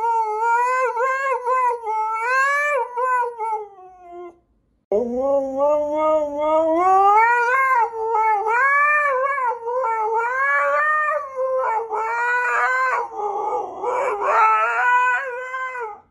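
Huskies howling in long, wavering, sing-song calls. The first howl tails off about four seconds in. After a brief pause a second husky starts low, slides up in pitch and keeps howling.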